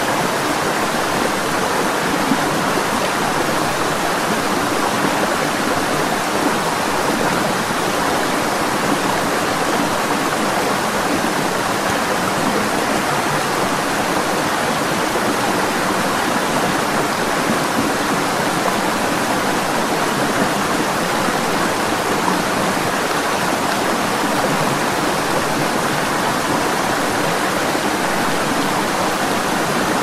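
Water stream running over rocks: a steady, unbroken rush of flowing water.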